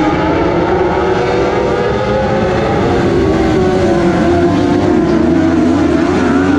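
A pack of dwarf race cars running laps on a dirt oval, their engines blending into a loud, steady drone that wavers a little in pitch.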